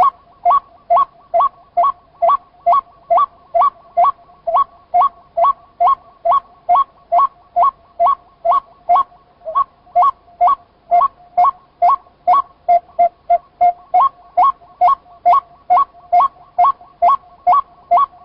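White-breasted waterhen calling: a long, unbroken series of loud two-pitched notes repeated very evenly at about two a second.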